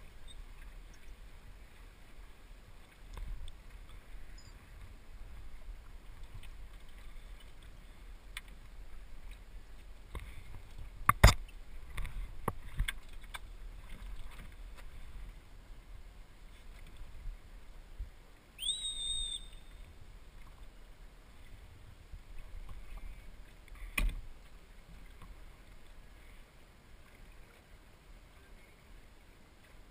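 Small El Toro sailing dinghy moving slowly under sail: a low rush of water and wind against the hull. A few sharp knocks, the loudest about eleven seconds in, a couple more just after, and another about twenty-four seconds in. A short high squeak about nineteen seconds in.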